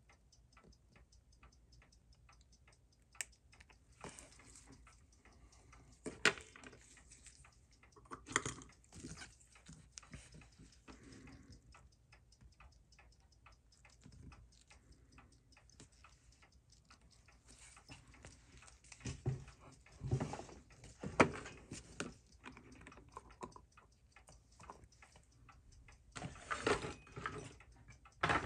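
Fast, steady ticking of a mechanical watch, several ticks a second. Louder clicks and rustles of tweezers and a plastic sheet being handled come and go, the loudest about 6, 8 and 21 seconds in and again near the end.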